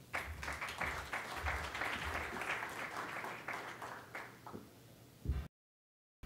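Audience applauding, fading out after about four and a half seconds. The sound cuts out completely for a moment near the end.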